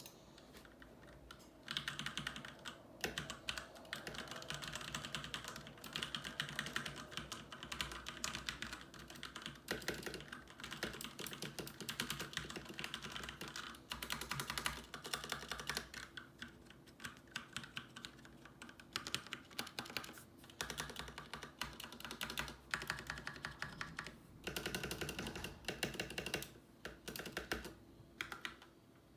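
HyperX Alloy mechanical keyboard with Cherry MX Red linear switches being typed on quickly: a dense patter of key clacks that starts about two seconds in, with a few short pauses.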